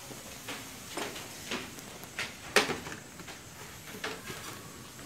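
A few scattered short knocks and clicks, the sharpest about two and a half seconds in.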